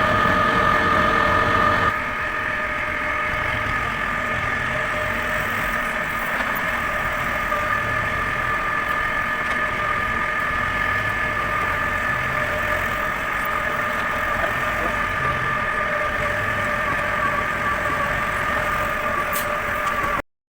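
Electric drive unit of a feed mixer running steadily with a constant whine over a rumble, a little louder for the first couple of seconds, then cutting off abruptly at the very end.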